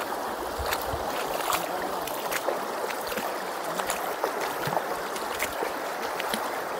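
Shallow river flowing over stones, a steady rush of water with scattered small splashes.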